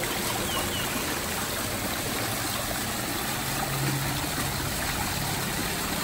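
Water of an artificial rock-waterfall fountain spilling steadily down its tiers of basins, a continuous splashing rush.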